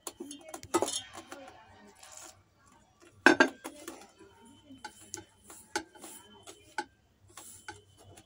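Hand mixing flour and yeast water in a stainless-steel bowl: irregular light clinks and taps of fingers and the bowl, with a louder knock about three seconds in.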